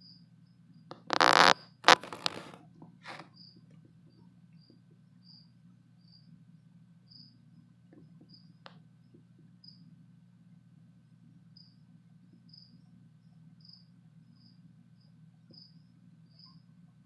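A cricket chirping in short, high chirps, about two a second. About a second in, a loud burst of noise with a sharp click cuts across it for a couple of seconds.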